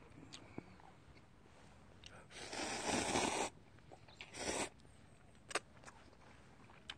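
Instant cup ramyeon noodles slurped: a long slurp about two and a half seconds in and a shorter one just after four seconds, with a few faint clicks in between.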